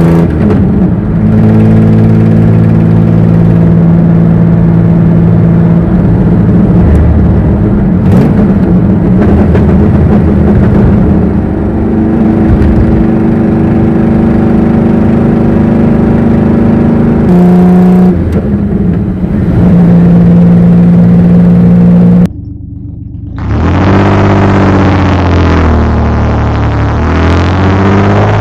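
Ferrari engine running under way at steady revs, its pitch stepping up and down a few times. After a brief dip near the end, the revs climb in rising sweeps.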